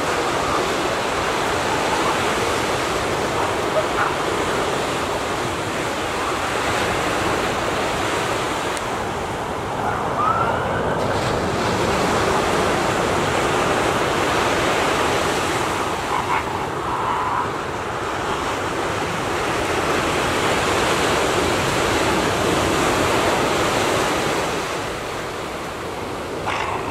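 Ocean surf washing in a steady rush that swells and eases every few seconds, with a few faint short cries over it.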